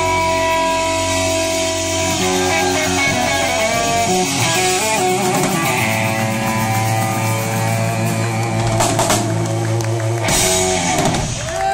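Electric guitar played live at rock volume: held, ringing notes and string bends over bass and drums. A loud crash comes about ten seconds in, then a long held guitar note near the end.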